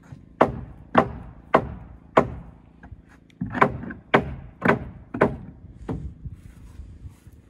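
Hammer blows on wooden wall framing: four sharp strikes about half a second apart, a short pause, then about six more.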